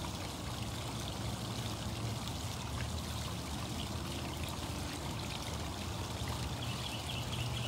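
Steady running water, a continuous rushing and trickling with no breaks.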